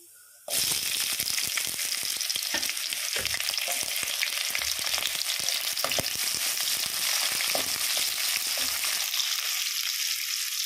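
Sliced onions hit hot oil with cumin seeds in a kadhai: a loud sizzle starts suddenly about half a second in and carries on steadily as the onions fry. A slotted spoon stirring in the pan adds scattered clicks and scrapes.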